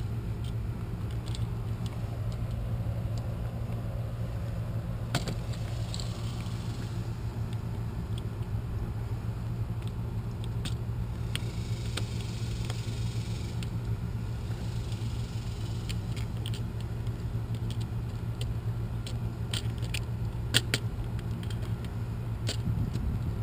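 A steady low hum with scattered light clicks and taps, and one sharper click about twenty seconds in.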